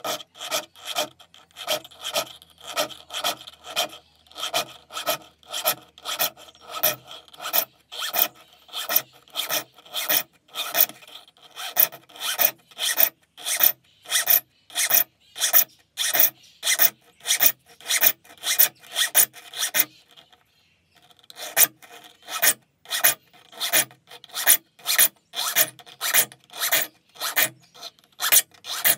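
Hand sharpening of a vintage Sorby of Sheffield dovetail saw: a small saw file scraped across the teeth in short, even push strokes, about two a second, with one brief pause about two-thirds of the way through.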